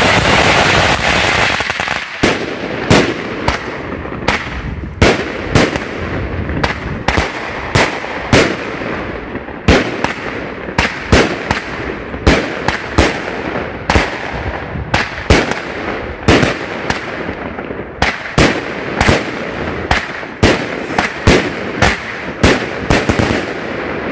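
A Black Cat firecracker bomb going off in a dense, rapid crackle of firecrackers for about two seconds. Then a 25-shot Voodoo Fest cake fires its flame-ball shots, each ending in a sharp report, roughly one or two a second until near the end.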